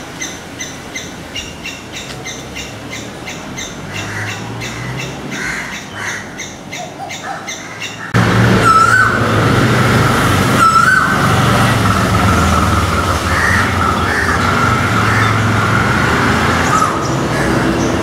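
Faint, high bird chirps at first. About eight seconds in, the sound jumps louder: a male Asian koel gives two sharp rising calls about two seconds apart, over a steady rumble of road traffic.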